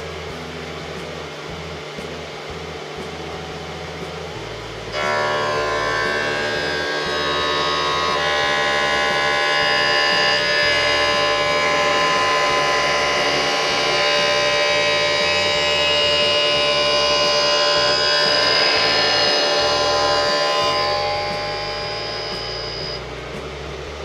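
Optical lens edging machine cutting a 1.74 high-index lens. A rising motor tone comes about four seconds in. About a second later a loud cut starts, with many steady tones layered together, and it holds until near the end, then fades.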